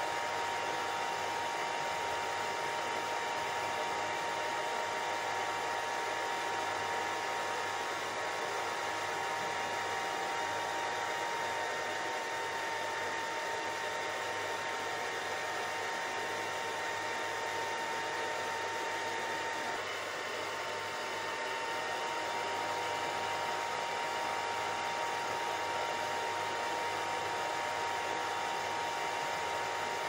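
Steady white noise played for sleep and relaxation: an even hiss with a faint steady whine in it. It dips slightly about two-thirds of the way through.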